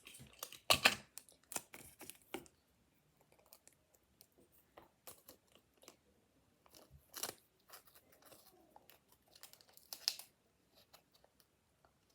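Paper and cardboard being worked by hand: irregular rustling, crinkling and crunching with small clicks, loudest about a second in, around seven seconds and around ten seconds.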